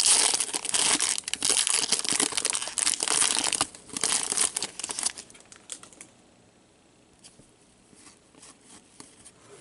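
A hockey card pack's wrapper torn open and crinkling loudly for about five seconds, then only faint clicks as the cards are slid out and sorted.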